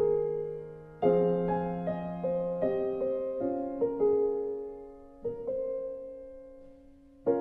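Slow, gentle piano music: notes and chords struck a few at a time and left to fade away before the next ones sound.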